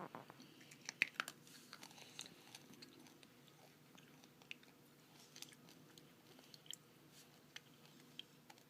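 Someone crunching and chewing an orange Tic Tac mint, faint irregular crunches with the sharpest clicks in the first second or so.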